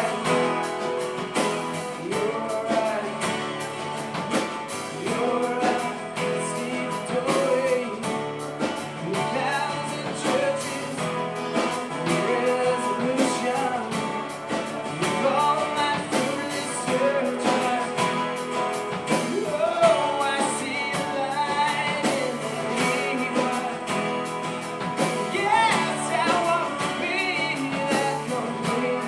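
Live band playing a song: acoustic guitars strummed, men singing into microphones, and drums keeping a steady beat.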